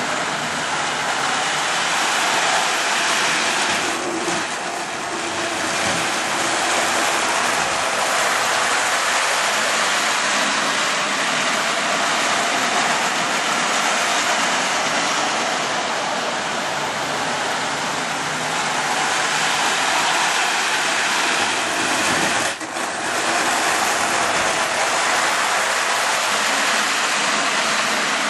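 Marx 1666 toy steam locomotive running on Lionel FasTrack O-gauge track: a steady rushing noise of its motor and wheels rolling on the hollow track, dipping briefly twice, once about four seconds in and once past twenty-two seconds.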